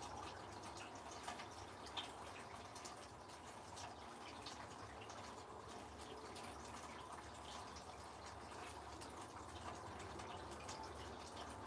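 Rain dripping: a faint steady hiss with many small, irregular drip ticks.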